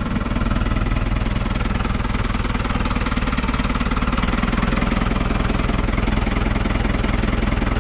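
Farm tractor engine running at a steady speed.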